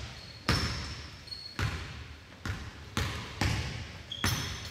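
A basketball being dribbled on a court floor, about six bounces at an uneven pace. Short high squeaks of sneakers on the floor come in between.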